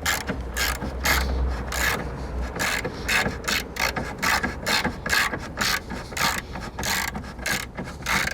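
Socket ratchet wrench clicking in short, repeated strokes, about two to three a second, as bolts are run in and tightened.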